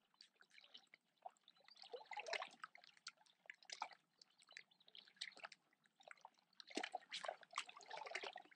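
Faint, irregular water sounds: small splashes, drips and trickling at the water's edge.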